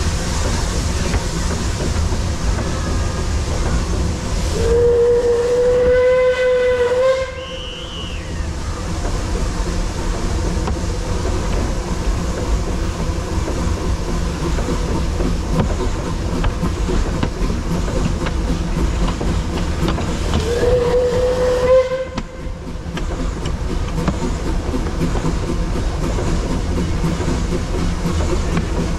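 Narrow-gauge Puffing Billy steam locomotive running along the line with a steady rumble, sounding its whistle twice: a long single-note blast a few seconds in, and a shorter one about twenty seconds in.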